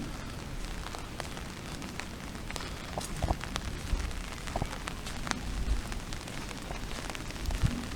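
Steady rain, with scattered sharp drops ticking close by over a low rumble.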